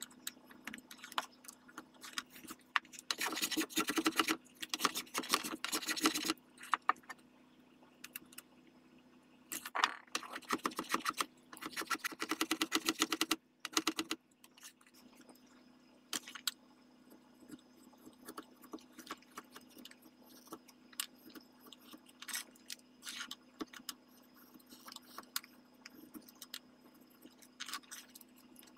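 A wood rasp scraping over a walnut gunstock in two runs of quick, rough strokes, each a few seconds long, then scattered light taps and clicks as tools are handled.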